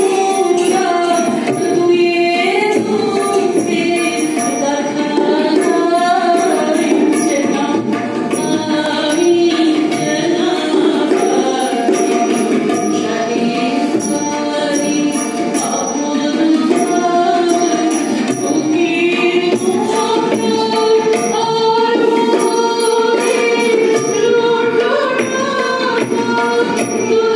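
Singing with music: a slow melody in long held, gliding notes, amplified through a microphone and hall sound system.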